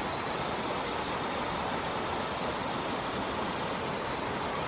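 Stream water babbling steadily over rocks.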